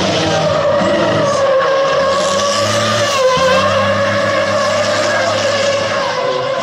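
Volvo race truck tractor unit drifting: its tyres squeal in one long, steady tone that dips slightly in pitch about halfway through, over the engine's low running.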